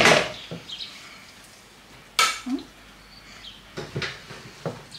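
Metal spoon clinking and scraping against a glass baking dish and bowl as casserole filling is spooned in: a few sharp knocks, the loudest about two seconds in.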